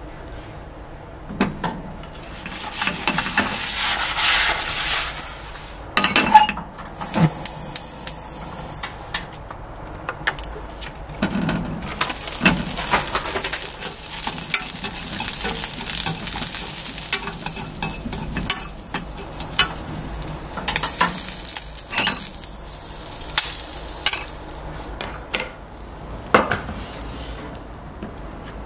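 Small sausages sizzling in oil in a frying pan on low heat, turned with wooden chopsticks that click and scrape against the pan.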